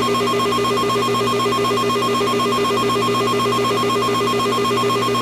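Emergency alert attention tone: a loud alarm of two pitches, a high one and a lower one, rapidly pulsing at an even rate, signalling the start of a blizzard warning.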